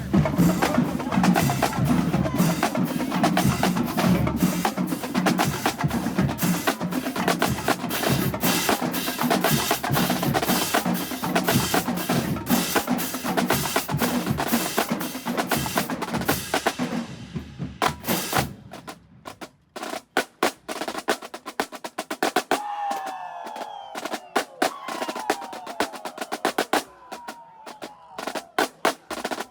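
Marching band drumline playing a cadence: fast, dense snare and bass drum strokes. About eighteen seconds in, it drops to quieter, sparser taps.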